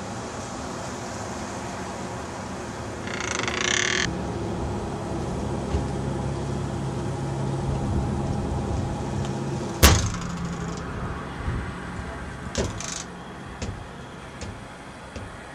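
Outdoor ambience with a steady hiss and a vehicle's low hum passing in the middle. A sharp loud knock comes about ten seconds in, followed by a few lighter clicks.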